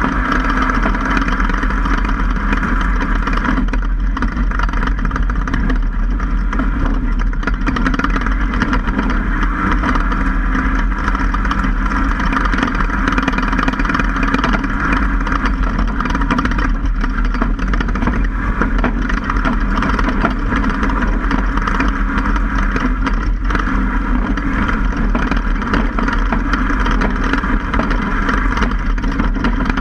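Steady driving noise from a Ford F-150 prerunner on a dirt track, picked up right at the right front wheel. Tire, suspension and wind noise blend with the truck's engine into one even sound that holds at the same level throughout.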